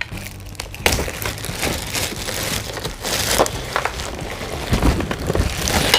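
Packaging being handled and unwrapped: dense crinkling and rustling with small clicks and knocks, starting about a second in.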